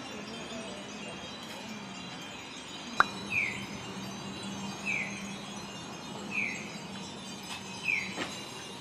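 A short, high chime-like tone, sliding slightly down in pitch, repeats four times, about one every second and a half, over steady street noise. A single sharp click comes about three seconds in, just before the first tone.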